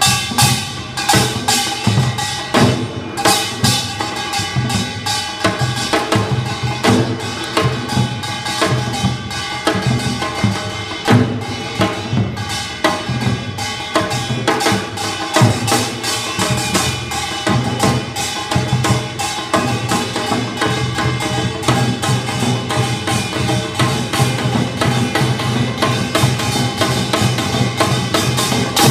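Korean buk barrel drums beaten with sticks in a fast, dense rhythm, with sharp woody clicks among the heavier drum strokes and a small metal gong ringing over them.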